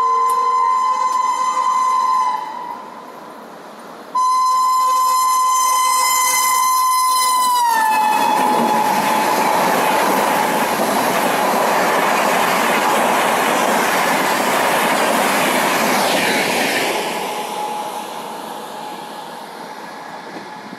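WAP-5 electric locomotive's whistle horn sounding two long, high-pitched blasts as the Gatimaan Express approaches; the second blast drops in pitch as the locomotive passes close by at speed. Then comes the loud rush and wheel clatter of the coaches running through without stopping, fading near the end.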